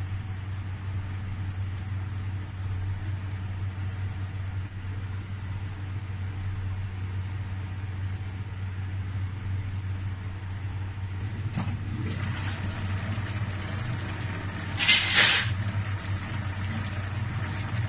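A steady low motor-like hum, with a couple of faint clicks about eleven and a half seconds in and a brief loud clatter near fifteen seconds.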